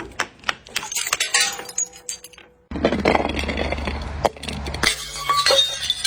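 Glass bottles breaking on concrete steps: a run of sharp knocks and clinks with shards tinkling, and a brief ringing tone from the glass. After a short gap about two seconds in, more clattering impacts and broken glass skittering follow.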